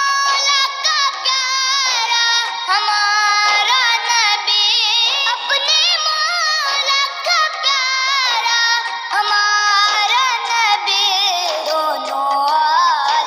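A naat, an Islamic devotional song, sung by a high voice in a continuous, ornamented melody with many wavering, sliding notes.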